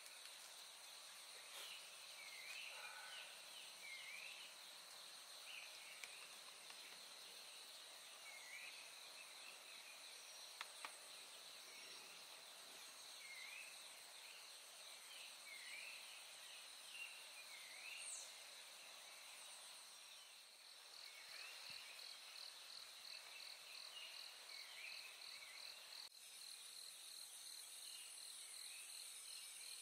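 Faint insect chorus with a steady high-pitched trilling. Short chirping calls from another animal repeat every second or two over it. Near the end the trilling turns pulsing.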